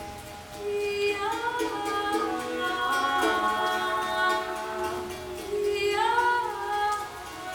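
Group vocal improvisation: several voices hold long notes and slide between them, swelling in after about half a second.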